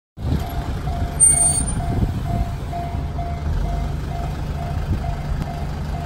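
Japanese level-crossing warning bell in the JR standard electronic tone, dinging steadily a little over twice a second while the barriers are down: a train is approaching. A low rumble runs underneath, and a brief high squeal sounds about a second in.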